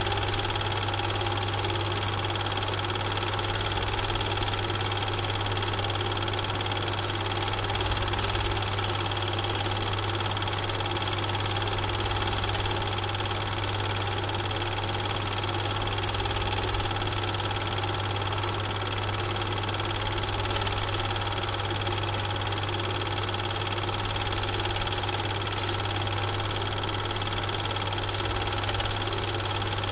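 Steady mechanical hum with a fixed low drone and a hiss, unchanging throughout: a Super 8 film projector running.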